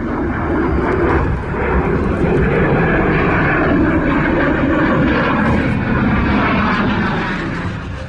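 Jet fighter's engine noise, a loud steady rush that eases off near the end.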